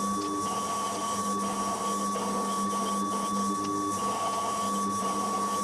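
Metalworking machine tool running at a steady speed while machining stainless steel bar. It gives a constant high whine over a steady hum, with a few fainter tones coming and going.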